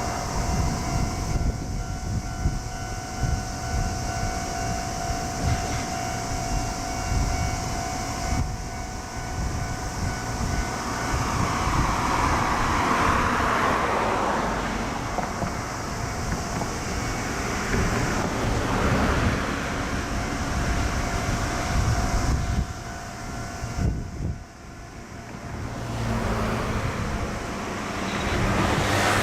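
A train passing on the line, its running noise swelling twice, with wind buffeting the microphone. A steady ringing tone stops about eight seconds in.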